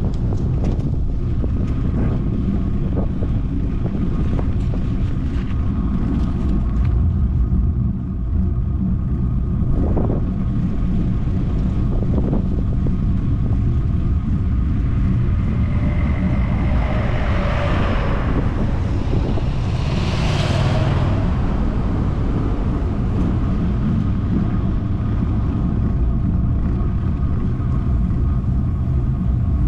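Wind buffeting the microphone on a moving motorcycle, over a steady engine and road drone. A rushing swell of noise rises and falls about two-thirds of the way through.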